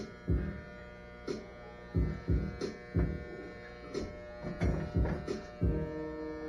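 Electric hair clippers buzzing steadily as they cut hair, under background music with a heavy, uneven drum beat; the drum hits are the loudest sound.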